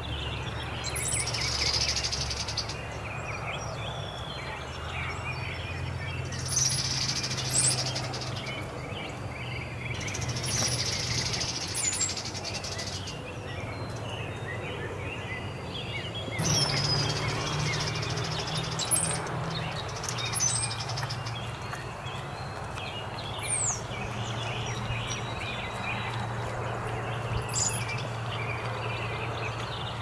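A flock of birds, thought to be cowbirds courting, singing from a treetop: about six bursts of song, each with a thin, very high whistle, over a steady low background rumble.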